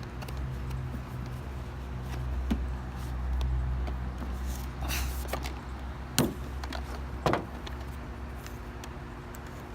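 Cardboard packaging of a video doorbell being opened and handled: a few scattered knocks and clicks over a steady low hum.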